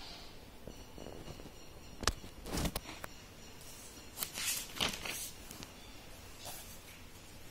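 Paper notebook being handled, with a few short knocks and rustles as a hand moves over it and its page is turned.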